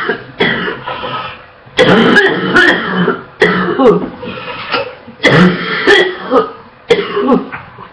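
A young woman coughing hard in repeated fits of barking, wet coughs, several sharp coughs to each run, with breathy gasps between the fits.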